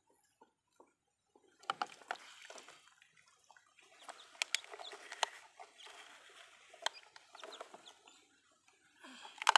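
Chickens clucking, mixed with sharp clacks of plastic toy trucks and a toy excavator being handled and knocked together in shallow muddy water, with small splashes. The loudest clack comes near the end.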